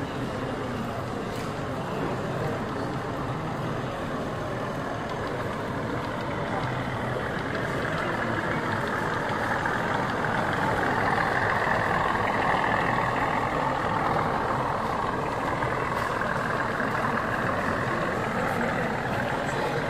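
Diesel engine sound from a sound-fitted model Class 37 locomotive running on a layout, over a steady background of hall noise. It grows louder about halfway through as the locomotive passes close by.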